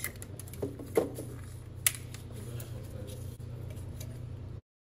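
A few sharp clicks and knocks of hand tools and parts handled on the engine, over a steady low hum. The sound cuts off abruptly near the end.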